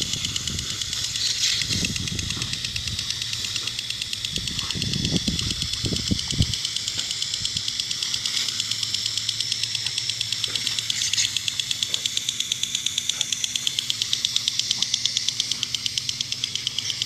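Lawn sprinkler spraying water in a steady hiss with a fast, even flutter, the spray broken up as a dog bites into it. Low rumbling bursts in roughly the first six seconds.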